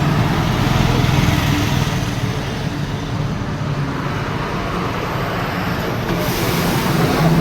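Road traffic: motor vehicle engines running steadily with a low hum, growing a little hissier near the end as traffic moves past.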